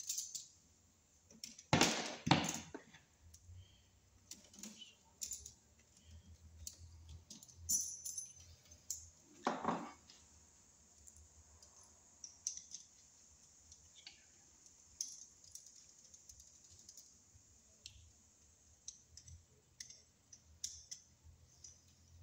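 Scattered small metal clicks and taps as a screwdriver and pliers work a cable connector and its locknut into the knockout of a metal electrical panel box, with louder scrapes about two seconds in and again around ten seconds.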